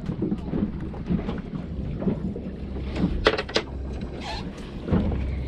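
Wind rumbling on the microphone aboard a small boat, with a few scattered knocks and clicks. Two sharp knocks come about three and a half seconds in.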